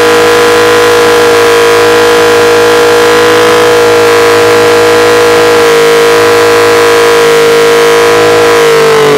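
Yamaha XS850's three-cylinder engine held at high revs during a burnout, the rear tyre spinning on the pavement. A loud, steady, high-pitched wail whose pitch sags slightly near the end.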